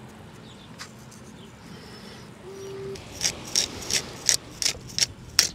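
Handheld pepper grinder being twisted over fish, grinding out pepper in short crisp crunches, about seven of them at roughly three a second, starting about three seconds in.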